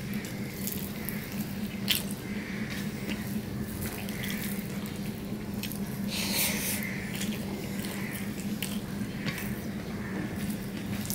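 Close-up eating by hand: wet chewing and smacking of rice mixed with mashed taro leaves, with scattered short clicks and a louder wet mouthful about six seconds in. A steady low hum runs underneath.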